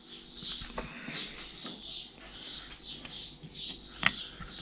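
Faint, short high chirps repeating every half second or so, and one sharp knock about four seconds in as a wooden jaw-mount plaque is set down on the workbench.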